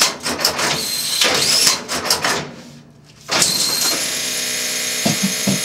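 Mosca ROMP-4 strapping machine: about two seconds of clattering and rustling, a short lull, then from about three seconds in a steady motor whine as the accumulator feed motor runs, emptying out the excess strap after the machine has detected that it is out of strap.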